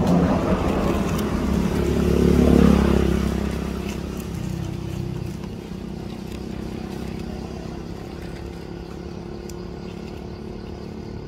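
A motor vehicle's engine running, rising to its loudest about two to three seconds in and then fading away as it passes.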